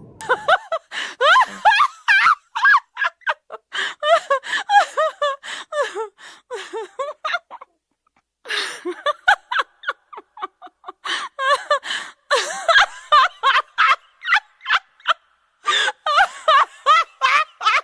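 High-pitched laughter: a fast run of short giggling bursts whose pitch bends up and down, breaking off briefly about eight seconds in and then going on.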